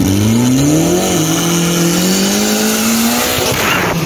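Drag-racing cars accelerating hard, their engine note climbing with a shift about a second in, then climbing again. Near the end the cars pass close by with a rush.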